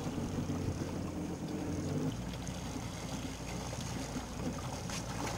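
Yamaha 190 FSH jet boat's engine running steadily at low speed as the boat is turned around, its tone shifting about two seconds in, with water and wind noise underneath.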